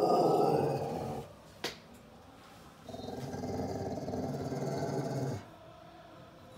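A Staffordshire bull terrier and Rhodesian ridgeback cross dog growling low: two long, rumbling guarding growls, with a short click between them, aimed at something she has spotted outside the door.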